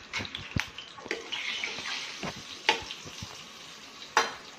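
Hot ghee sizzling in a metal kadhai with black pepper powder just added, broken by a few sharp metallic clinks of a ladle or spoon against the pan, the loudest near the end.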